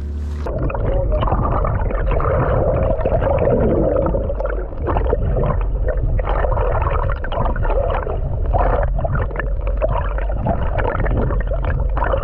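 Muffled gurgling and sloshing of sea water around a boat, over a steady low rumble, with no crisp high sound in it.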